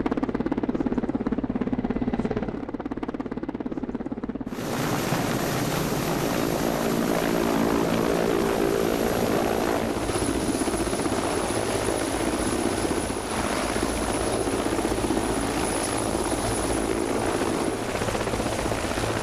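Military helicopter flying, its rotor and engine making a steady, beating drone. About four and a half seconds in the sound abruptly becomes louder and hissier.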